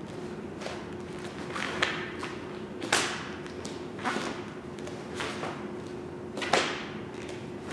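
Sharp snaps of a taekwondo uniform (dobok) and thuds of bare feet on foam mats as a form's strikes and kicks are performed: several separate hits, the loudest about three seconds in and again about six and a half seconds in. A faint steady hum sits underneath.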